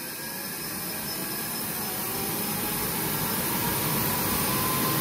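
Homemade jet engine being spun up by its starter motor: a rushing blast of air from the exhaust with a whine that rises steadily in pitch as the turbine speeds up, growing louder throughout.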